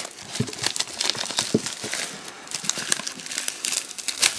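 Plastic wrapping on a sealed trading-card box crinkling and crackling as it is handled and torn open.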